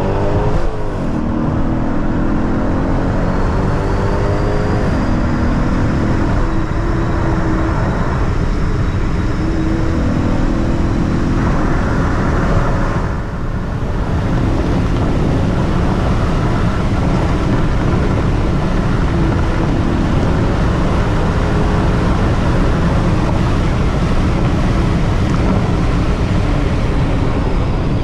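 Engine and road noise of a 2012 Hyundai Genesis R-Spec's 5.0-litre V8 running on E85, heard from inside the cabin at highway speed. The engine note steps up and down in pitch a few times, and there is a brief dip in loudness about halfway through.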